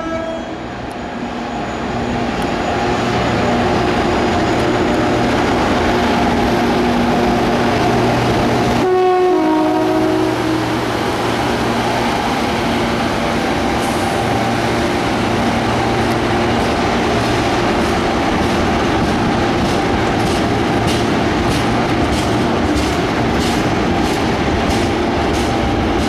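Class 92 electric locomotive 92001 passing with a train of empty steel-carrier wagons. It sounds its two-tone horn about nine seconds in, a high note then a low one, over the steady running of the train. Near the end the wagon wheels click over the rail joints at about two clicks a second.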